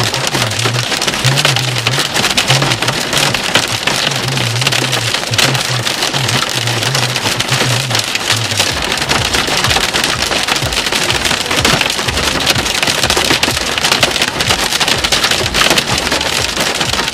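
Hail and heavy rain drumming on a car in a dense, loud patter of countless small hits.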